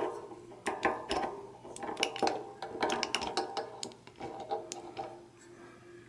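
Dualco mini grease gun being pumped, forcing grease into a bicycle rear hub's bearing cup: a run of clicks with short squeaky creaks, dying away about five seconds in.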